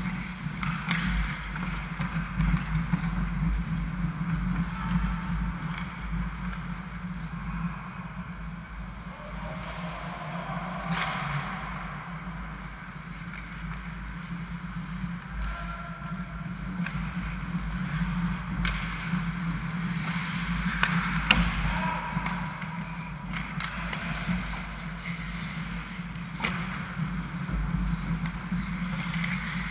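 Ice hockey play: skates scraping on the ice and scattered sharp clacks of sticks and puck over a steady low hum, with occasional distant shouts.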